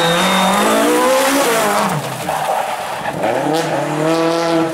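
Rally car engine at full throttle on a stage. The pitch climbs, falls away about two seconds in, then climbs again.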